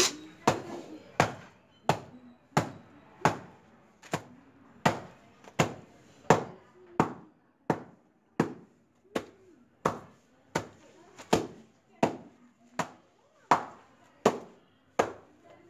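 Wooden washing paddle (thapi) beating wet laundry on a stone slab in hand-washing: sharp, evenly paced strikes, about three every two seconds.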